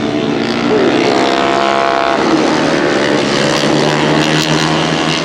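Several KTM RC250RBR race bikes, single-cylinder four-stroke 250cc engines, running at high revs as they pass, their pitches rising and falling and overlapping.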